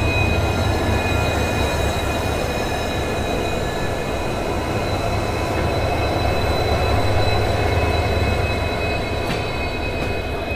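Two trains passing each other on a single-line diesel route: a steady low rumble of diesel locomotives and wheels on the rails, with a thin, steady high squeal over it.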